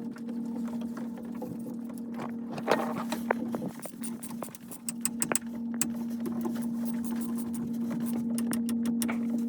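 A steady machine hum with scattered clicks and knocks of handling or work, the hum growing a little louder near the end.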